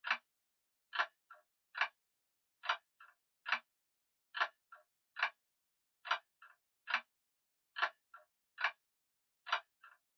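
Grandfather clock ticking steadily, a little more than one sharp tick a second, with every other tick followed by a fainter click.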